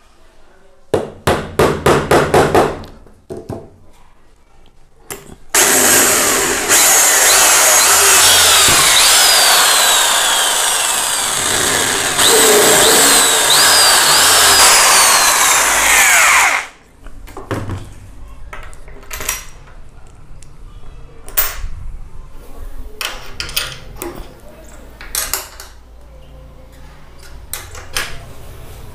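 An electric hand drill boring holes through a wooden sewing machine table top, running loud and steady for about eleven seconds, its whine rising and dropping as it bites. Before it comes a quick run of taps, a nail being knocked in to mark the hole. After it come scattered clicks and knocks as the motor bracket is handled under the table.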